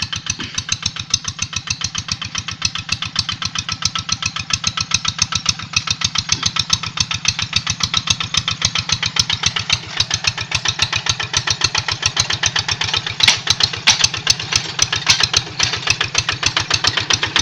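Single-cylinder Kubota diesel engine of a Quick Boxer 1000 hand tractor chugging steadily under load while ploughing hard, dry soil, which it is struggling to cope with. The chugging gets louder about two-thirds of the way through.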